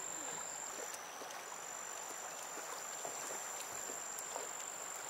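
Faint, steady high-pitched trilling of a night insect chorus, such as crickets, holding two unbroken tones over a light hiss.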